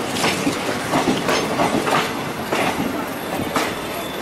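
Wheels of an express passenger train clattering over rail joints as it rolls along, heard from aboard the coach: irregular sharp clacks every third to half second over a steady rolling rumble.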